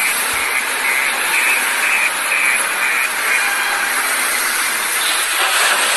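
Wheel loader's diesel engine running hard as it lifts and dumps a bucket of coal into a rail wagon: a steady rushing roar with little bass. A string of short high beeps repeats about twice a second through the first half.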